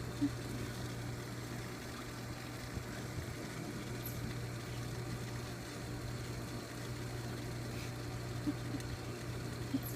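A steady low hum, like a household appliance running, with a few faint short soft taps near the start and the end.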